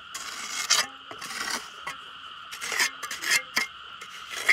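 About half a dozen irregular rasping, scraping strokes, the loudest at the very end, over a steady high hum.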